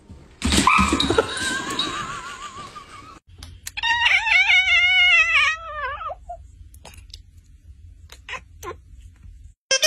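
A loud shrill cry over noise for the first three seconds, then a cat's single long meow, wavering and falling in pitch at the end, about two and a half seconds long.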